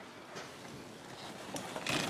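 Light clicks and rattling of a brake pressure-bleeder adapter being worked loose and lifted off a plastic master cylinder reservoir, louder near the end.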